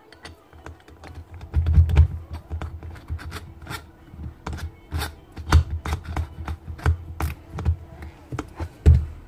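Irregular clicking and knocking from a Milwaukee cordless drill's chuck being worked loose by hand, with a hex key clamped in its jaws as a lever. A few heavier thumps come from the drill being handled against the floor.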